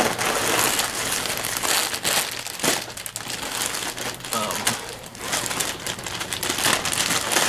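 Packaging of cross-stitch kit floss crinkling and rustling as it is handled, with steady crackle that dips briefly a few times.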